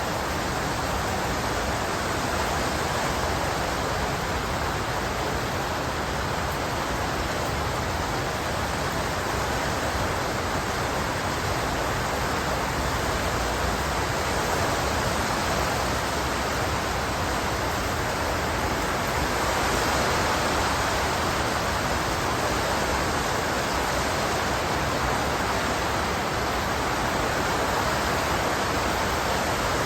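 Heavy squall rain pouring down in a steady downpour, swelling a little about two-thirds of the way through.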